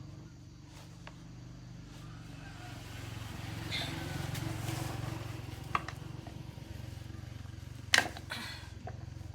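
A motorbike engine running, growing louder midway and then easing off, with a few sharp clicks, the loudest about eight seconds in.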